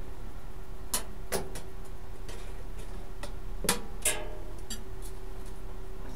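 A handful of sharp metallic clicks and taps, the two near the middle ringing briefly, over a steady electrical hum.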